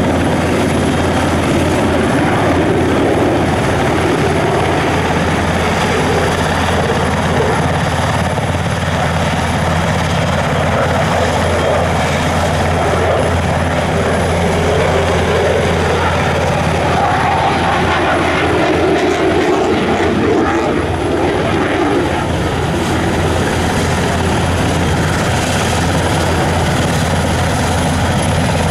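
Jet roar from a Eurofighter Typhoon's twin EJ200 turbofans, swelling and fading as the fighter passes overhead and climbs away. Under it runs the steady drone of an NH90 helicopter's engines, started up close by.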